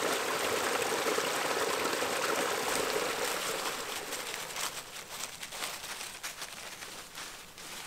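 Water pouring steadily from a small spring outlet and splashing into a pool. About halfway through it gives way to light, irregular crackling and rustling of dry fallen leaves as a cat walks across them.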